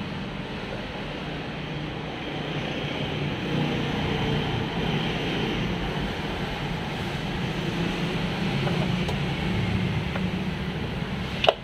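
Steady low drone and hiss of background machinery, with one sharp click near the end.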